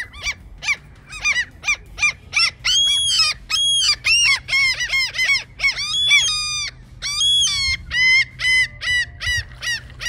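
Common gulls calling loudly: a fast, continuous series of high, arching cries, about two or three a second, with a few longer drawn-out calls in the middle.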